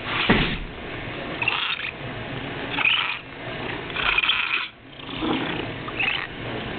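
Domestic cat vocalizing: a short call falling in pitch at the start, then several brief noisy sounds roughly a second apart.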